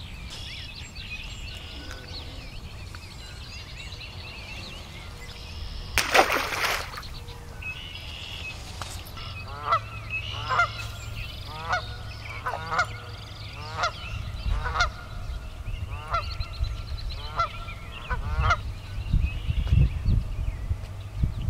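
A goose honking about ten times, roughly once a second, through the second half, over faint chirping of small birds and wind rumbling on the microphone. About six seconds in, a brief loud rush of noise.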